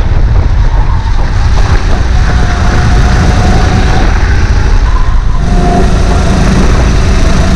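Onboard sound of a Sodikart RX7 rental kart's 270 cc single-cylinder four-stroke engine running under racing load, a loud, continuous rumble with the engine note shifting slightly as the revs change.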